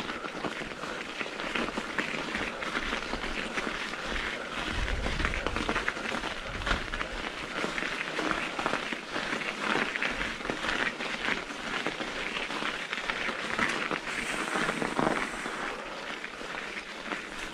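Continuous crunching and crackling of packed snow, a dense run of small clicks with no pause.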